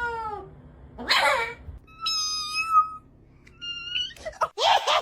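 Domestic cat meowing: a drawn-out meow tails off at the start, followed by a short breathy sound and then two short, high-pitched mews. Near the end a louder, busier stretch of sound comes in.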